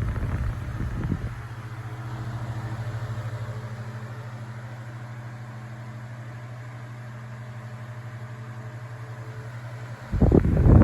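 Vintage 9-inch Galaxy electric fan running, its motor giving a steady low hum. The rush of its airflow hits the microphone at first, drops away about a second in, and comes back near the end.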